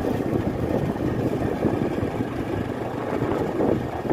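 Motor scooter running at a steady cruise while being ridden, its small engine heard under a rough, even rushing noise.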